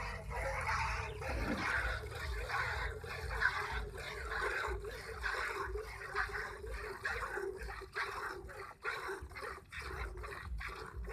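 Cow being milked by hand: milk squirting into a pail in steady, rhythmic streams.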